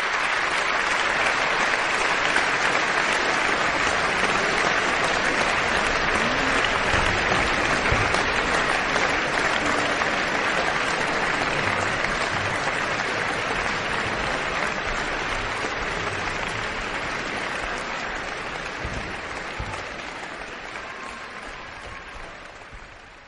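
Concert audience applauding steadily, fading out over the last few seconds.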